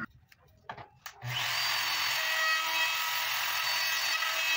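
Handheld wood router running along the edge of a wooden strip, rounding it over, with a steady high whine over a low hum. It comes in about a second in, after a moment of near silence with two short clicks.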